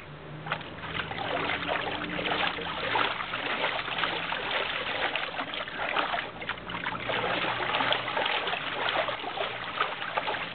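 A dog pawing and stamping in a shallow plastic paddling pool, the water splashing and sloshing in quick irregular bursts throughout.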